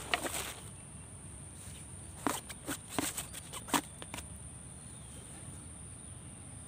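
Steady high-pitched insect drone, with a short run of dry crackling clicks at the start and a cluster of them between about two and four seconds in.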